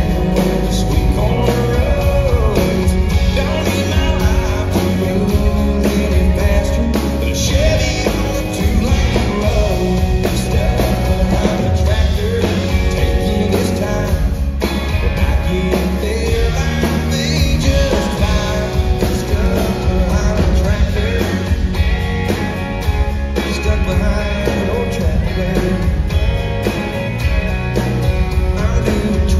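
Live country song: a male voice singing over strummed acoustic guitar and band accompaniment, played loud and steady.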